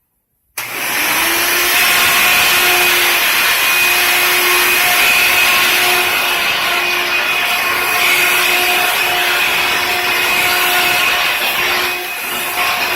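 Hoover Runabout vacuum cleaner starting abruptly about half a second in, then running steadily: a constant motor whine over the loud rush of air.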